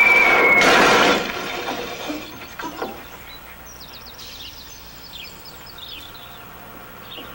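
A falling whistle ends as a heavy stage spotlight smashes onto the pavement about a second in: a loud crash with breaking glass, followed by a few scattered rattles of debris. After that, birds chirp over a quiet street.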